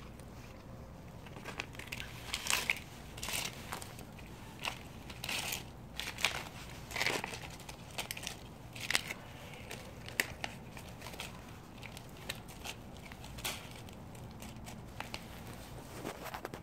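Plastic food pouch crinkling and crackling irregularly as a cat eats from it, with quick bursts of rustle that grow sparser in the second half.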